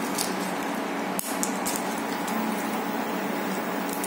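Cumin seeds and broken dried red chillies frying in hot oil in a pan, a steady sizzle with a few small crackles, over a steady background hum.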